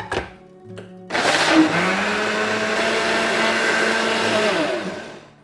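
Electric blender mixing crêpe batter. Its motor winds up about a second in, runs steadily for about four seconds, then spins down near the end.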